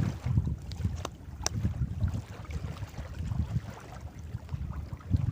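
Wind buffeting the microphone on a small boat at sea, a gusting low rumble, with two sharp clicks about a second in.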